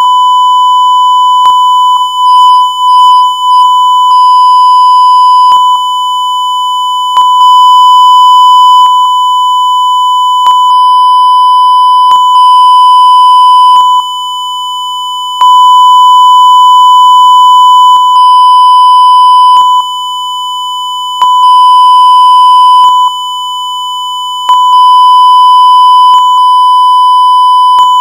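Long TV beep: one unbroken, steady, high pure tone. Its loudness steps up and down every second or two, with a faint click at each change.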